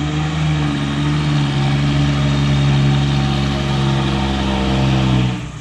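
Heavily loaded Hino Ranger truck's diesel engine pulling up a hill, a steady low drone that steps up slightly in pitch about half a second in, then drops away sharply near the end.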